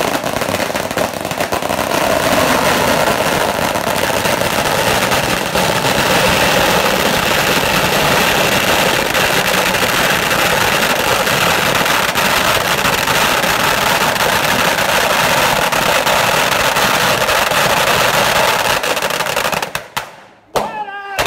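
A long string of red paper firecrackers going off in a rapid, continuous crackle of bangs. It dies away about twenty seconds in, with a few last separate bangs.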